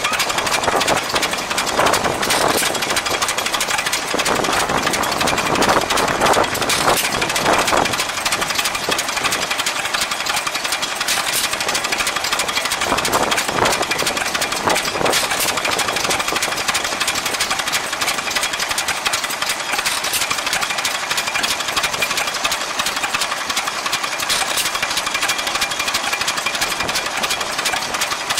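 Vintage single-cylinder, hopper-cooled stationary engine running, with a steady rapid clatter and louder spells now and then.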